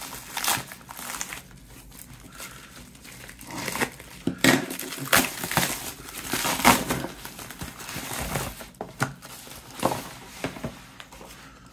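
Plastic poly mailer bag crinkling and tearing as it is pulled open by hand, with irregular rustles and crackles, busiest in the middle, as cardboard boxes are drawn out of it.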